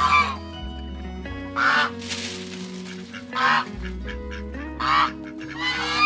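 Geese honking repeatedly, a short loud call about every one and a half seconds, over background music.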